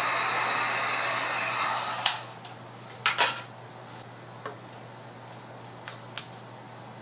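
Handheld heat gun blowing steadily, switched off about two seconds in. Then a few sharp clicks and snaps as the cracked iPad glass is pried up with a plastic pry tool.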